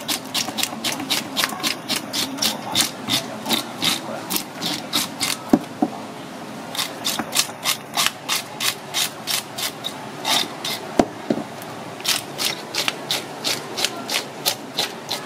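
A wooden-handled scaling brush scraping the scales off a whole red snapper on a cutting board, in quick short strokes about three or four a second with two brief pauses. Two sharp knocks, the loudest sounds, come about five and a half and eleven seconds in.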